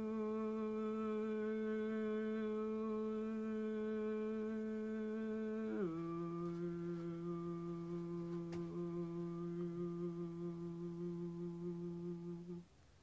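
A woman humming long, steady held tones: one note, then a step down to a lower note about six seconds in, held until it stops near the end.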